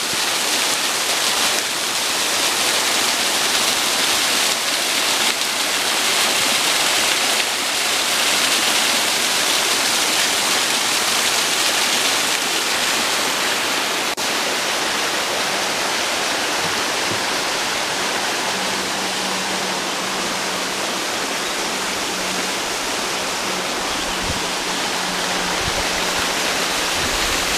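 Steady rushing of water from a small mossy waterfall and a fast, rocky forest river. About two-thirds of the way in, a faint low steady hum comes in under the water.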